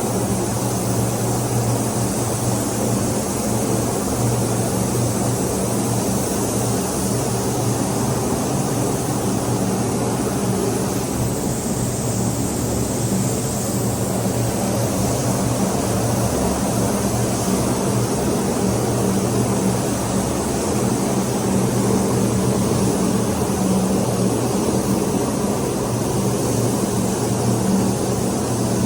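A steady machine drone: a constant low hum over a rush of air noise, unchanging throughout.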